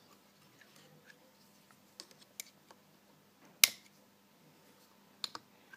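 Wrist-pin circlips being worked into the grooves of a Yamaha two-stroke jet ski piston with a pick tool, giving a few light clicks. There is one sharp click a little past halfway and a quick pair near the end.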